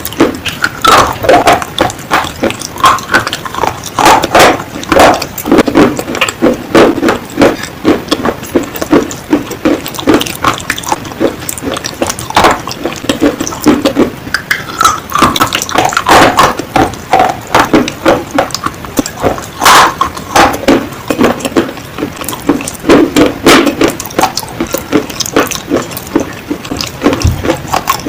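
Close-miked biting and chewing of baked Punjab clay (mitti), a rapid, irregular run of crunches.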